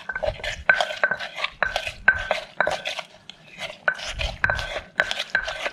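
Wooden pestle and spoon knocking against a clay mortar while green papaya salad is tossed and lightly bruised. It is a series of sharp knocks, two or three a second, each with a brief ringing tone from the mortar, with a short pause about three seconds in.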